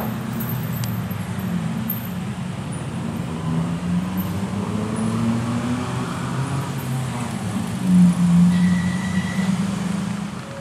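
Diesel locomotive engine running low and steady, its pitch shifting slightly now and then, with a short high tone about eight and a half seconds in.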